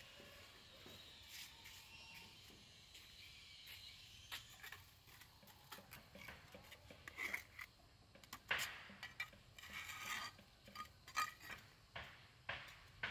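Scattered light clicks, taps and scrapes of small hard objects being handled, sparse at first and coming thicker and louder in the second half.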